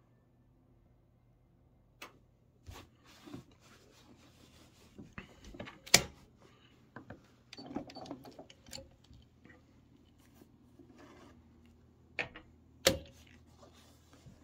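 Handling sounds as a quilt is shifted and positioned at a sewing machine: scattered clicks and knocks with soft fabric rustling between them. The sharpest click comes about six seconds in and another near the end.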